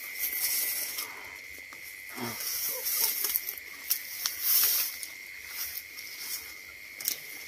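Footsteps and bodies brushing through grass and dry brush, making irregular rustling with a few light knocks, over a steady high insect tone.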